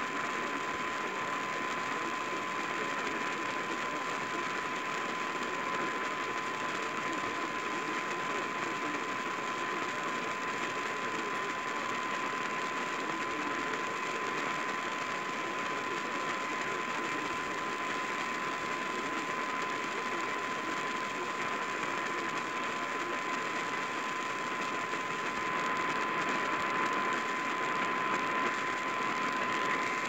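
Static hiss from a portable AM radio tuned to 780 kHz with no station audio coming through, and a thin steady whistle running under the hiss. The hiss grows a little louder near the end.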